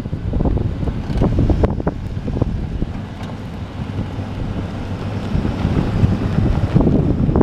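Wind buffeting the microphone with low rumbling and irregular pops, over the engine of a compact pickup truck as it drives off across a dirt lot.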